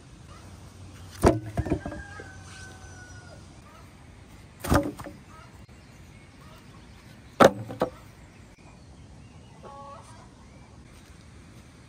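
Three loud bangs a few seconds apart, each followed quickly by one or two lighter knocks; a short faint ringing tone follows the first group.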